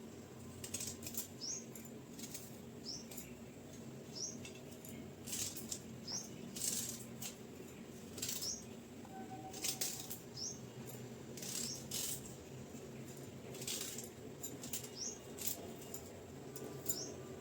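Knife chopping fresh ginger on a cutting board: irregular sharp knocks, about one every half-second to second. Short high chirps sound between the cuts.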